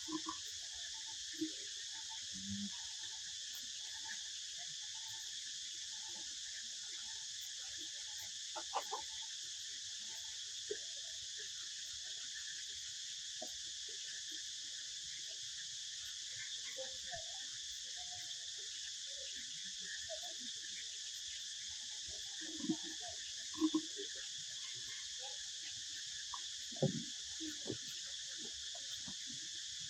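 Steady chorus of insects, crickets or cicadas, chirring without a break, with a few soft knocks and faint scattered small sounds over it.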